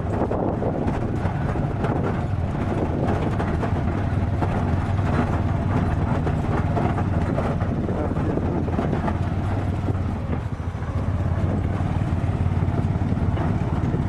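A vehicle engine running steadily, a low hum under a rushing noise.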